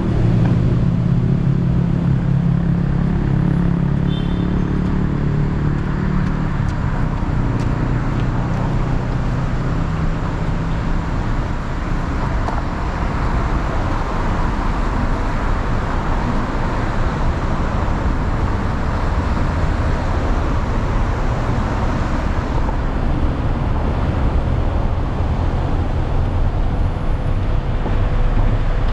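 Traffic on a busy road passing steadily. For the first several seconds a large vehicle's engine hum stands out, fading away about ten seconds in.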